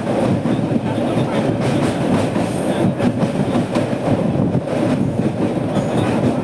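Passenger train running along the track, heard from on board the coach: a steady rumble of wheels on rails with clattering rattle from the carriage.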